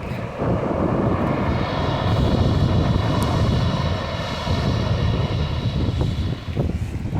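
Strong wind buffeting the microphone. A steady high whine made of several stacked tones comes in about a second and a half in and fades near the end.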